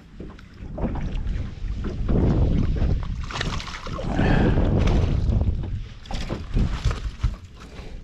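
Water splashing and wind buffeting the microphone as a small flathead is scooped out of the water in a landing net, with a few sharp knocks near the end.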